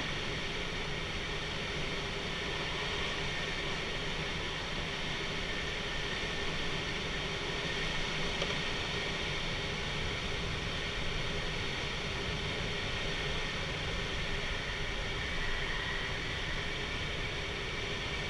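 Steady rush of airflow over a glider in flight, heard from inside the cockpit.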